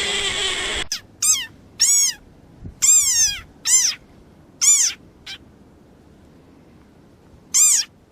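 A small animal gives short, high-pitched squeaky calls, each rising then falling in pitch, about seven in irregular succession with a longer gap before the last. A sustained pitched cry cuts off abruptly about a second in, before the calls start.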